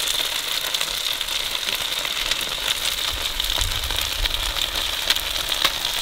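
Skewers sizzling in a metal baking tray over a charcoal fire: a steady hiss laced with many small crackles and pops.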